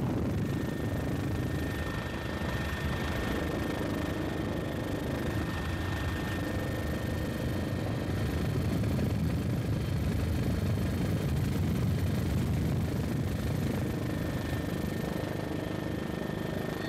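Helicopter noise from the aircraft filming: a steady low engine and rotor rumble with a thin, steady high whine on top.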